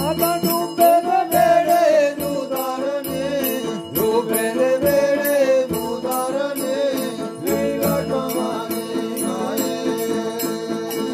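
A man singing a Dogri musadha folk ballad in a chanting style, with a long-necked folk string instrument holding a steady drone and bells jingling in a regular beat.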